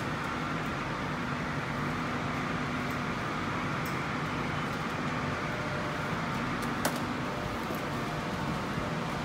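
Steady low mechanical hum of machinery, with a few faint clicks and one sharper click about seven seconds in.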